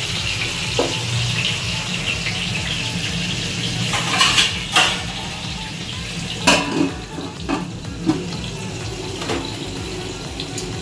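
Stuffed ridge gourds sizzling in oil in a steel kadhai, with metal clinks and a sharp clatter about six and a half seconds in as a steel lid is set on the pan to let them cook covered. The sizzle is fainter after the lid goes on.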